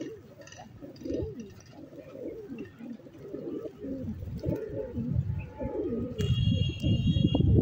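A group of pigeons cooing, many low calls overlapping. About six seconds in, a steady high tone sounds for about a second, and a louder low rumbling noise builds near the end.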